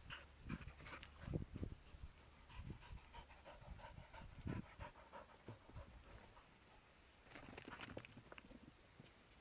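Cockapoo panting faintly in short, uneven breaths, louder near the end as it runs up close.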